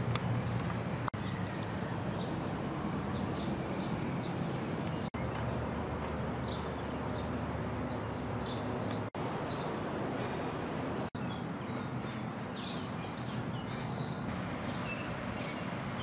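Outdoor ambience of small birds chirping, many short calls scattered throughout, over a steady low rumble. The sound cuts out for an instant a few times.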